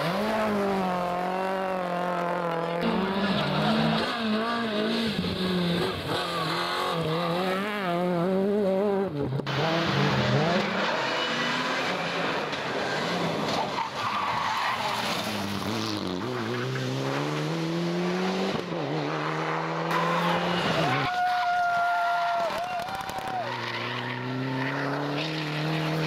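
Turbocharged four-cylinder rally cars driven hard on a stage, one after another: engines revving up and falling back through quick gear changes. Near the end comes a brief tyre squeal.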